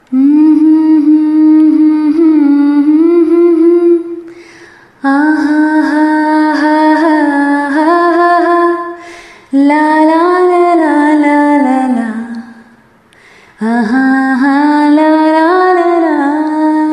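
A woman's voice singing a wordless melody without accompaniment, in four long phrases with short breaks between.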